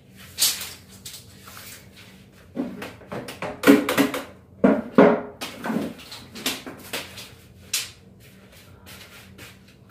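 A steel tape measure being extended, flexed and handled: a series of sharp clicks and metallic rattles, loudest and most frequent in the middle.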